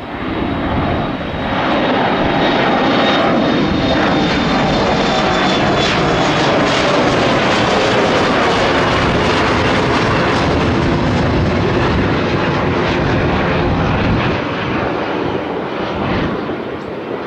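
Embraer E175 regional jet's twin GE CF34 turbofans at takeoff power as it departs and passes: a loud, steady jet rush that builds about a second in and eases near the end. A faint high whine falls slowly in pitch through the middle.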